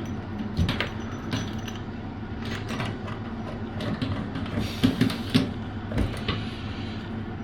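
Shower hose fittings being handled and unscrewed: scattered light clicks and knocks of small plastic and metal parts.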